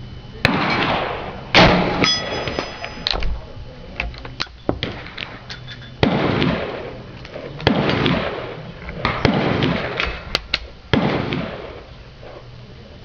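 Gunfire: about six shots, each a sharp crack followed by a fading echo, two of them about a second apart, with lighter clicks and knocks between them.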